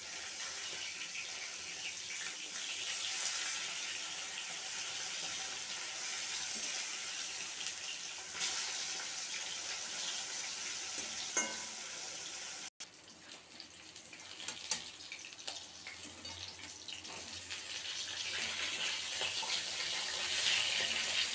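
Catla fish steaks sizzling as they fry in hot oil in an iron kadai. A steady sizzle that cuts out abruptly about halfway through, then returns softer and grows louder toward the end.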